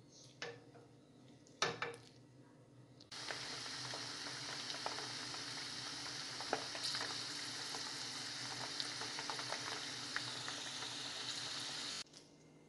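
Almonds frying in hot oil in a pan: a steady, loud sizzle that starts suddenly about three seconds in and cuts off near the end. Before it come a few knocks of a wooden spoon stirring the almonds against the pan.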